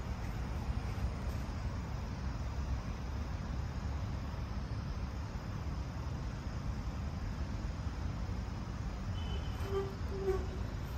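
Steady outdoor background noise, mostly a low rumble, with a few faint short chirps near the end.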